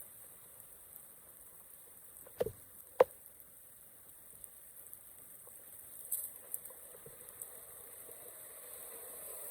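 A few sharp clicks and knocks, the loudest two about half a second apart early on, over a faint steady hiss.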